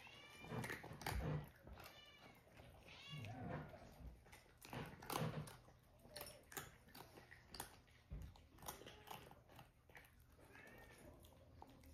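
Cat eating dry kibble from a ceramic bowl: a run of faint, irregular crunching clicks as it chews, with a few short pitched sounds near the start, about three seconds in and near the end.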